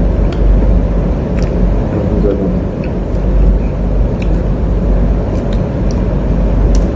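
A steady low rumble with scattered small clicks and smacks, the mouth and finger sounds of people eating fries at a table.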